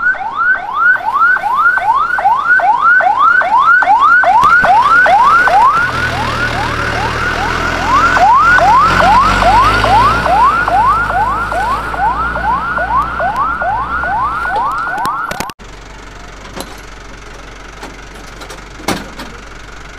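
Fire truck's electronic siren in a fast yelp, rising sweep after rising sweep at about three a second. It cuts off suddenly about three-quarters of the way through, leaving quieter background with a few knocks.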